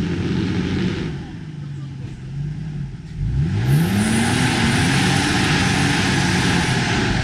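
Off-road vehicle engine running, then revving up sharply about three seconds in, with a loud rushing noise that lasts from then until the end as it powers through.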